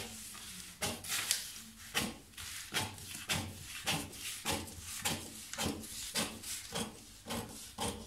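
Large scissors cutting through a sheet of pattern paper in a steady run of crisp snips, about two a second, with the paper rustling between cuts.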